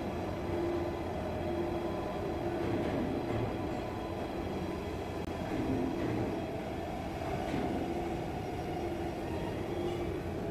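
Steady drone of factory machinery in a CNC pipe-turning shop, with a low hum that pulses on and off about once a second.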